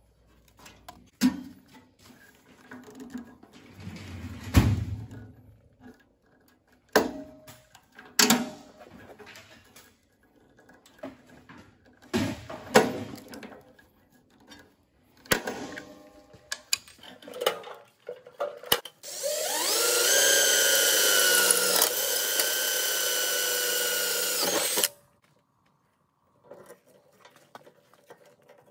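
Scattered clanks and clicks of sheet metal and tools being handled, then an electric drill spinning up with a rising whine and running steadily for about five seconds before stopping suddenly, drilling the header divider's sheet metal for pop rivets.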